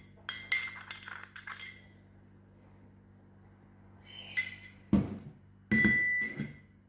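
Kitchen utensils clinking against glassware. A quick run of light clinks rings out in the first two seconds, then after a pause come a few more ringing clinks and a duller knock.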